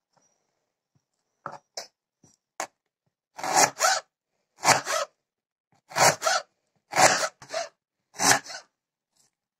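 Knife slicing through an onion on a plastic cutting board: a few light cuts, then five louder slicing strokes about a second apart.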